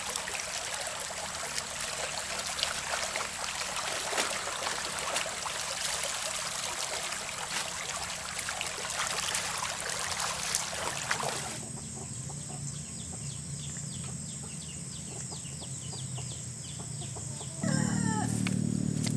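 A steady hiss with scattered crackles for about the first eleven seconds, then it cuts off and chickens are heard, with a rooster crowing near the end over the steady drone of an engine.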